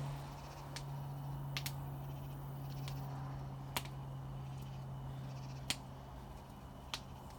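A small fire crackling: about six sharp, scattered pops over a steady low hum.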